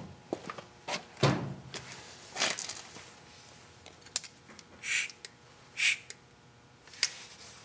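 Workshop handling noises: a string of clicks and knocks with a few heavier thumps early on, then two short hisses about a second apart past the middle.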